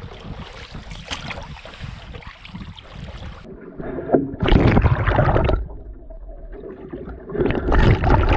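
Water sloshing and splashing along the side of a paddled wooden cedar-strip canoe as it moves through choppy water. Twice, a loud surge of rushing water breaks right at the waterline, about halfway through and again near the end.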